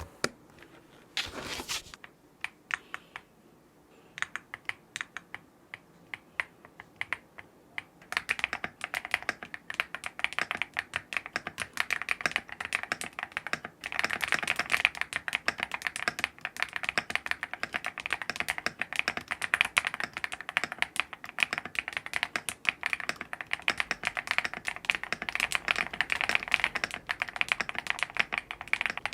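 Keystrokes on a KiiBoom Phantom 81 V3 acrylic-case mechanical keyboard: a few scattered clicks at first, then steady, fast typing from about eight seconds in.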